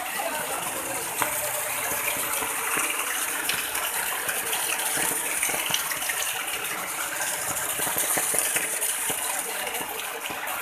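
Muddy floodwater rushing fast through a street, a steady gushing of water.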